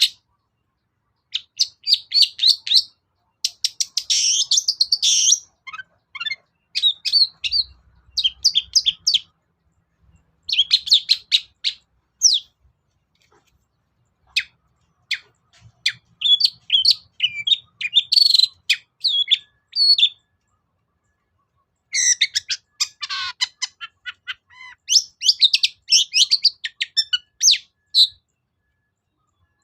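Long-tailed shrike (cendet) singing: quick phrases of rapid, high chattering notes, each lasting a second or two, with short pauses between them.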